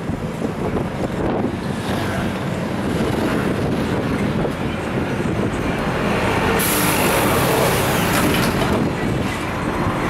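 Inside a moving Mitsubishi-built non-air-conditioned city bus: engine and road noise with air rushing in through the open windows. A stronger hiss comes in about two-thirds of the way through.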